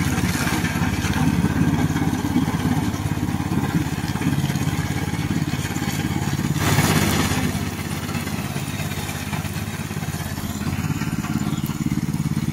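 Engine of a remote-controlled tracked mower running steadily as it cuts tall dry grass and weeds, with a brief rushing noise about seven seconds in.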